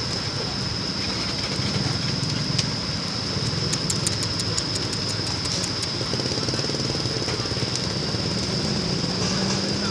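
A steady engine drone, typical of a fire engine's pump running to feed a fire hose, with a constant high whine over it. About four seconds in comes a quick run of a dozen or so crackling pops, like burning timber.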